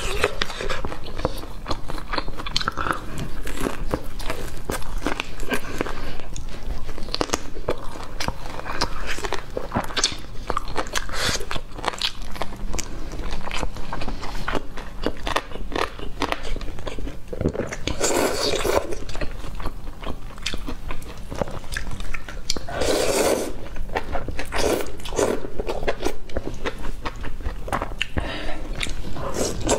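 A person biting and chewing crispy fried food close to a clip-on microphone: continual crunching and wet mouth sounds, with a few louder bursts about 18 and 23 seconds in.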